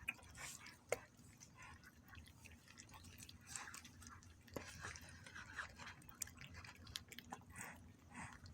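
A cat chewing its food: faint, irregular little crunches and clicks.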